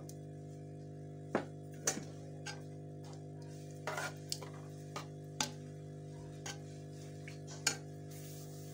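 A metal ladle clinking and scraping against the side of a metal karahi as dal is stirred: about ten short, sharp clinks at irregular spacing, over a steady background of music.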